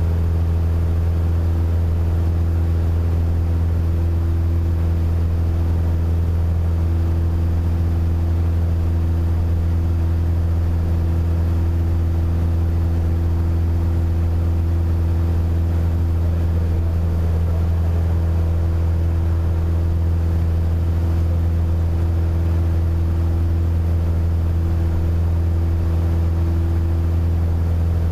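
Piper PA-28 Warrior III's four-cylinder Lycoming engine and propeller running steadily in flight, a constant low drone heard inside the cockpit.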